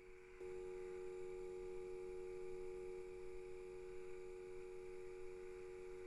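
A steady hum of several held tones that jumps up in level about half a second in and then holds steady.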